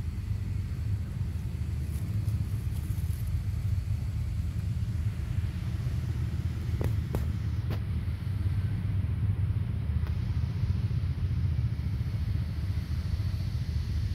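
Steady low rumble of outdoor background noise, with three faint clicks about seven seconds in.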